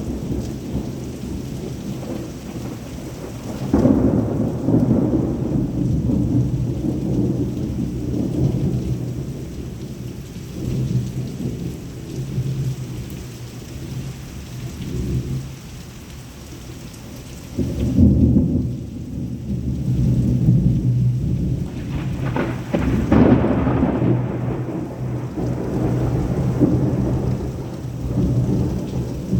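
Thunder rumbling over heavy rain, with loud rolling peals breaking about four seconds in, again around eighteen seconds, and at about twenty-three seconds.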